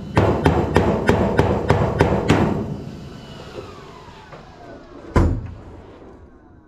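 Hammer blows on steel in a steady rhythm, about three a second, stopping about two and a half seconds in. A fading ring falls in pitch, and one heavy thump comes about five seconds in.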